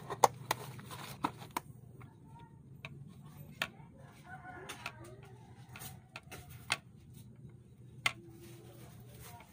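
Irregular clicks and knocks of a plastic water bottle and its snap-on cap being handled and set down, the sharpest a quarter second in and near the end. Chickens cluck faintly in the background.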